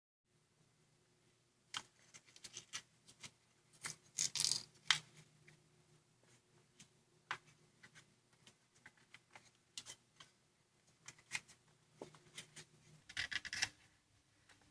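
Origami paper being handled and folded by hand: irregular small crinkles and taps, with louder rustling bursts about four seconds in and again near the end.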